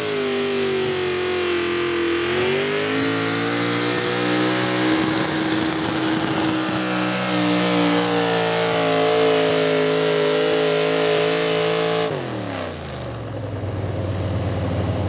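V8 engine of an Oliver modified pulling tractor running at full throttle as it pulls the weight-transfer sled. The pitch sags briefly, then climbs and holds high. About twelve seconds in the throttle is cut and the engine drops quickly to idle as the pull ends.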